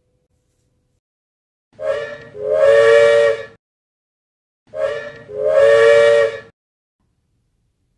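Samson's steam-engine whistle from Thomas & Friends, sounded twice. Each time it gives a short toot followed by a longer, loud whistle blast of several notes at once.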